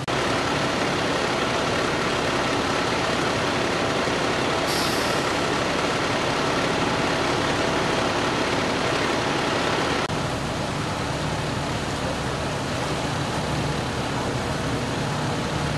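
Fire trucks' diesel engines running steadily at idle, with a brief high hiss about five seconds in.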